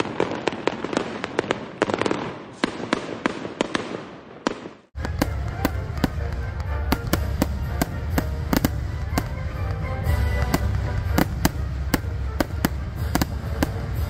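Fireworks crackling and popping in a dense run of sharp cracks that fades out just before five seconds in. Then music starts, with a heavy steady bass, and sharp firework cracks and pops keep going over it.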